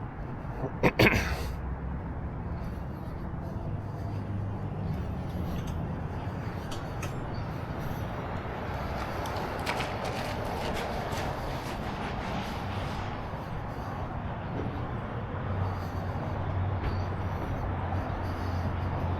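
Parking-lot traffic: a steady low hum of vehicle engines, with one sharp knock about a second in, the loudest sound.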